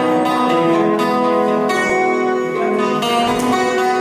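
Acoustic guitar playing chords, each left to ring until the next comes in.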